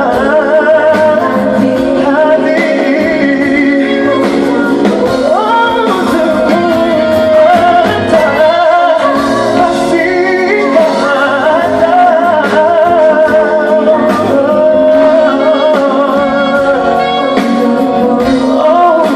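Live pop ballad: a singer with band accompaniment, recorded from the audience with little bass.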